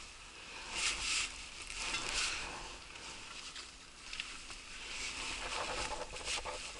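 Rustling and scuffing as someone clambers over large rounded boulders: jacket swishing in short irregular bursts, with gloves and boots scraping and knocking on the rock, a few small clicks near the end.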